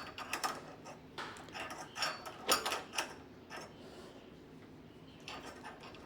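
Irregular metal clicks and scrapes of a screwdriver turning and seating the screws on a door lock's handle, busiest in the first few seconds and thinning out after.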